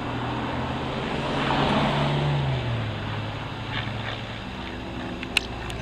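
Piston engine and propeller of a Van's RV aerobatic light aircraft flying past overhead. It is loudest about two seconds in, and its pitch then drops as the plane passes. A single sharp click comes near the end.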